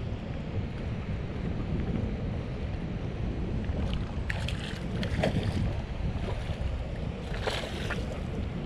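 Wind buffeting the microphone, with water splashing twice, about four seconds in and again near the end, as a hooked small black sea bream thrashes at the surface during the fight.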